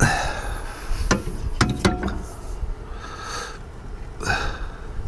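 A few sharp metal knocks and clinks, some ringing briefly, from a Swagman e-Spec bike rack's crossbar being handled and fitted onto the rack's main frame. The loudest come between one and two seconds in, over a low rumble of wind on the microphone.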